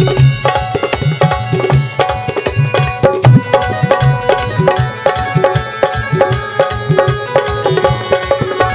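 Live Chhath folk-song music in an instrumental passage: a tabla-like hand drum keeps a quick rhythm under a melody of held notes.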